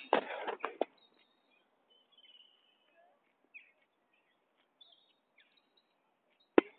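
Faint birdsong, short chirps and a few brief whistles, over quiet open-air background. A burst of loud rustling, scraping noise in the first second and a sharp knock near the end stand out above it.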